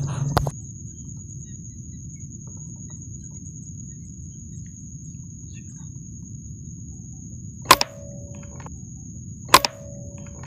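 Two air-rifle shots: sharp cracks about two seconds apart in the second half, each followed by a brief ringing tone. Under them runs a steady high-pitched whine and a low hum.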